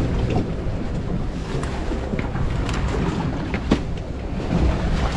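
Steady low rumble of a fishing boat at sea with wind on the microphone, broken by a few light knocks as fish and tackle are handled on the metal deck plate.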